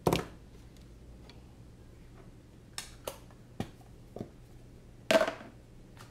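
Sharp knocks and clicks of things being handled on a desk: a loud knock at the start, a few lighter clicks around three to four seconds in, and a second loud knock about five seconds in.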